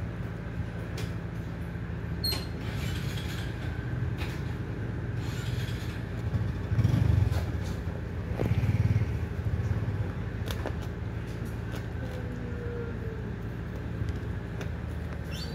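A dog and her puppies eating from a plastic bowl: scattered small clicks of chewing, lapping and the bowl knocking on concrete, over a steady low engine-like hum that swells louder twice in the middle.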